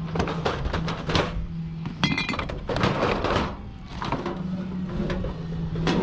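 Rubbish being rummaged through by hand: repeated knocks and thunks of items being moved, with a ringing clink of glass bottles about two seconds in.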